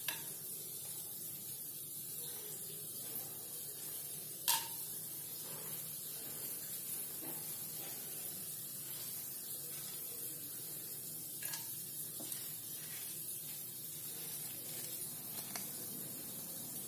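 Whole spices frying in a little hot oil in a non-stick kadai: a faint, steady sizzle, with a few light clicks as cinnamon, cardamom and cloves are dropped into the pan, the sharpest about four and a half seconds in.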